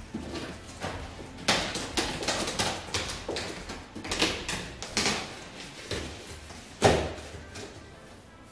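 Cardboard panels scraping and rustling as they are pushed together into their slots, with a sharper knock about seven seconds in.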